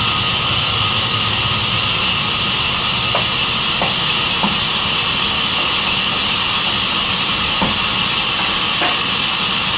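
Sawmill saw machine running steadily: a loud, even hiss with a few faint knocks.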